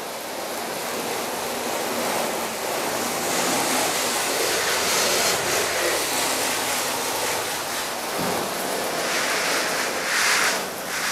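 Water jet spraying onto a car's bonnet to rinse it: a steady rushing hiss that grows louder as the jet moves over the paint, loudest near the end.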